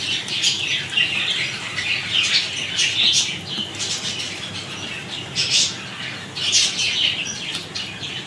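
Chopped onions and green chillies sizzling as they are tipped into hot oil in a steel karahi, the sizzle surging again and again as more pieces drop in.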